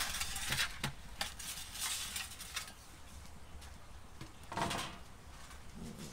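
A metal pizza peel knocking and scraping against the stone floor of a wood-fired brick oven: a few sharp knocks in the first second, then short scrapes around two seconds in and again near the five-second mark.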